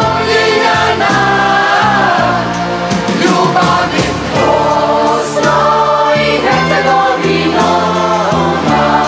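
Background music: a choir singing a melody over a full accompaniment.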